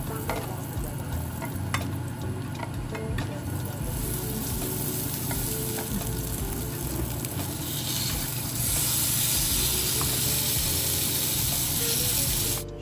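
Food frying in a pan while being stirred, with scattered light clicks of the utensil against the pan. About eight and a half seconds in, a louder, hissing sizzle comes in and cuts off suddenly near the end.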